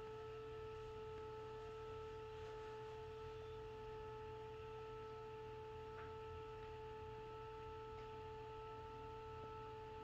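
Permobil F3 power wheelchair's seat actuator motor running with a faint, steady electric whine.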